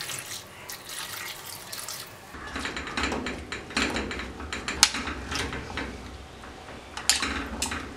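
Water poured into a stainless-steel pressure cooker full of chopped vegetables for about two seconds. Then a spoon stirs the vegetables in the water, with several sharp clinks against the pot.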